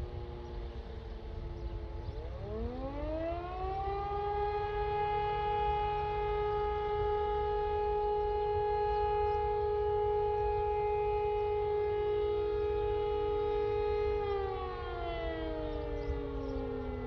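E57 electric rotary civil defence siren spinning up about two seconds in, rising to a steady howl held for about ten seconds, then winding down and falling in pitch near the end. A second siren's tone is heard falling away at the start and holding on underneath near the end.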